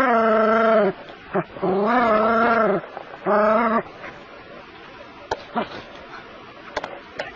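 A small terrier giving drawn-out, wavering barks, three in a row of up to about a second each, stopping about four seconds in; a few faint clicks follow.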